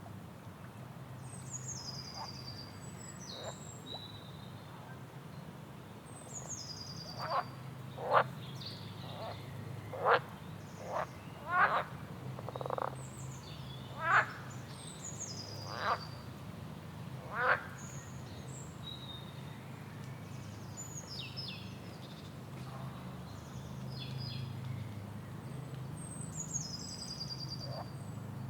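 Swamp frogs croaking, with a run of about eight loud, short, sharp calls in the middle. Birds chirp over them in high, falling calls, and a steady low hum runs underneath.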